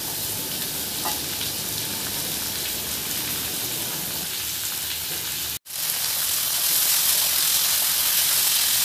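Torn wild mushrooms frying in hot mustard oil in a steel kadhai: a steady sizzle with stirring. The sound drops out for an instant about five and a half seconds in, then the sizzle comes back a little louder.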